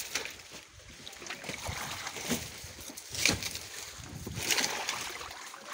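Water sloshing and splashing in a washing tank as hands of green bananas are dropped in, with two louder splashes about three and four and a half seconds in.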